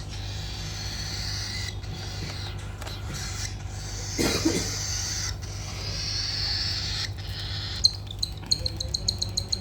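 Baby cockatiel begging during hand-feeding: a raspy, hissing call, breaking near the end into a fast run of short high chirps, several a second.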